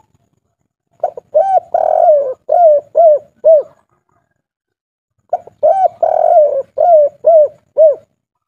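Spotted dove (derkuku) singing its cooing song, the type keepers call 'kuk 3'. It gives two phrases, about a second in and just past the middle, each a quick run of short coos around one longer, drawn-out coo.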